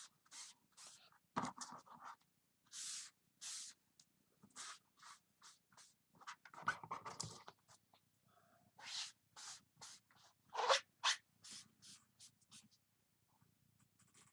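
Damp cloth wiping over plastic silkscreen transfers on a cutting mat to clean chalk ink off them. It makes faint, short swishing strokes, about two a second, in uneven runs.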